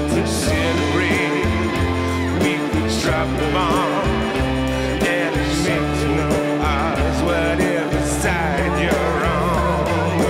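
Rock music with a steady beat, guitar and bass, with a wavering sung or lead line.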